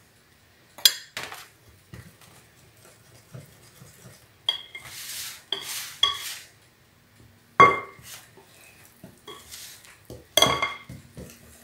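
Metal wire whisk and spoon clinking against a glass mixing bowl while flour is stirred into a soft batter: scattered clicks, two sharp ringing strikes near the end, and softer swishes of the whisk through the batter in between.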